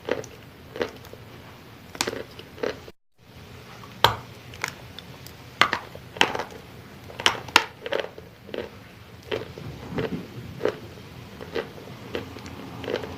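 Wet chalk being bitten and chewed close to the microphone: irregular sharp crunches and crackles, with a brief break in the sound about three seconds in.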